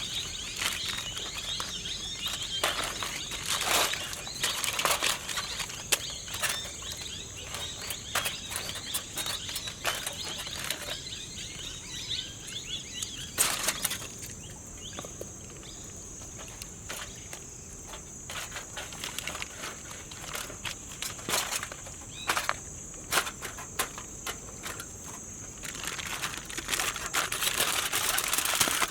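Steady high drone of insects, with scattered clicks and crackles of handling. Louder crinkling starts near the end.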